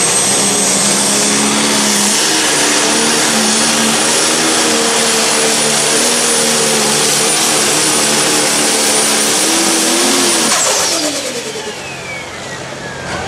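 Turbocharged diesel engine of a John Deere Pro Stock pulling tractor running at full power under load, with a steady high turbo whine above the engine note. About ten and a half seconds in, the power drops and the turbo whine winds down in pitch as the run ends.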